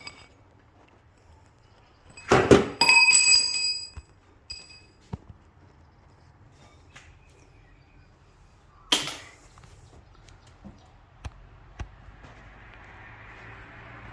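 Metal hand tools and parts clanking during strut removal. About two seconds in there is a loud clatter of metal on metal that rings briefly. Near nine seconds there is a single sharp knock, with a few light taps in between, and a faint hiss builds near the end.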